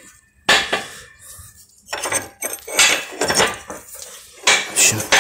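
Loose steel parts and tools clattering against each other and a metal surface: a sharp knock about half a second in, then a run of rattling clinks and knocks with a metallic ring.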